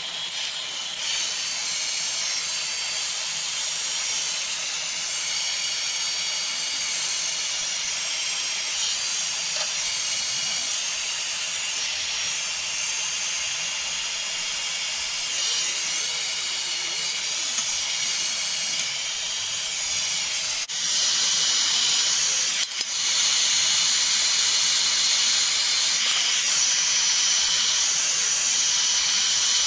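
Electric heat gun running against a steel bike frame: a steady rushing blow of air with a high fan whine. It gets louder about two-thirds of the way through.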